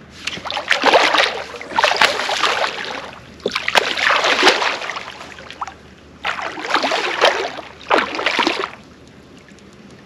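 Fishing reel's drag paying out line in five bursts of rapid clicking, each about a second long, as a hooked catfish pulls against the rod.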